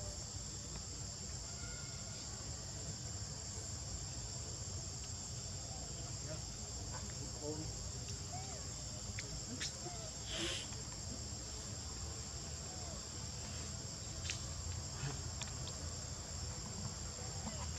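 Steady, high-pitched chorus of insects such as cicadas or crickets, with faint short chirps and a brief sharper sound about ten seconds in.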